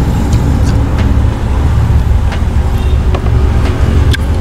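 Steady low rumble of a car engine idling, heard from inside the cabin, with scattered small clicks of close-up chewing.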